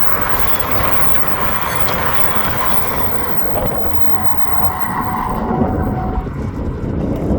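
E6 series Komachi mini-shinkansen train passing over a level crossing: a loud, steady rush of wheels on rail and moving air. A faint steady tone sounds for about two seconds midway.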